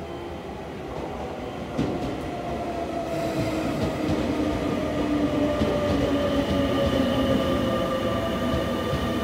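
Sotetsu 8000 series electric train running into the platform: wheels rumbling on the rails and the Hitachi IGBT VVVF inverter and traction motors whining in several tones that fall slowly in pitch as it brakes. It grows louder over the first few seconds as the cars come alongside, with a single knock about two seconds in.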